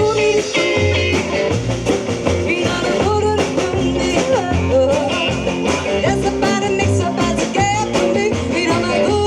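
Rockabilly song playing, with guitar, a steady driving beat and a singing voice.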